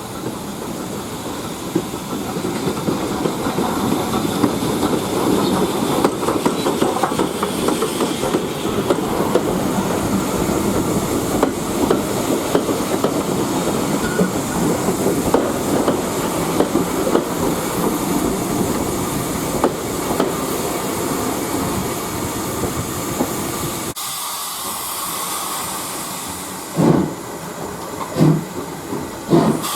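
Steam train running past, a dense rumble with the quick clatter of wheels over the rail joints and hissing steam. Near the end the sound changes suddenly to steam hissing, then slow separate puffs about a second apart from a steam locomotive.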